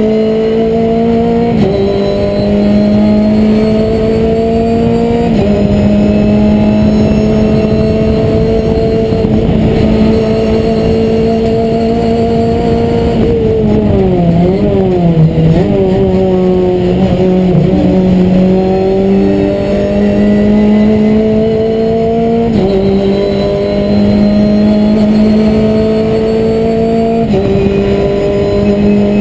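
Renault Clio Cup race car's four-cylinder engine at high revs, heard from inside the stripped cabin. The note climbs slowly and drops in steps at upshifts; about halfway it falls and wavers as the car brakes and downshifts, then climbs again with further upshifts.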